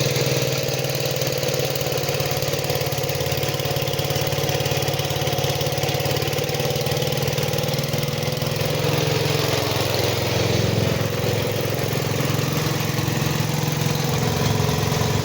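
Engine of the vehicle towing the old mower, idling steadily.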